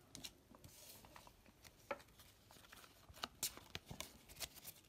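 Faint, scattered crinkles and light taps from Pokémon trading cards and foil booster packs being handled on a table, busier in the second half.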